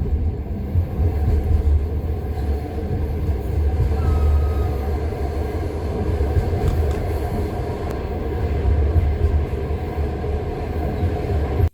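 Wheels of a passenger train knocking over the rail joints of jointed track, heard from inside a carriage: a steady low rumble with repeated wheel knocks.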